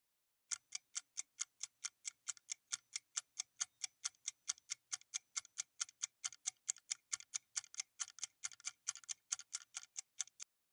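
Quiz countdown-timer sound effect: quick, even clock-like ticks, about five a second, running while the timer counts down and stopping shortly before the end.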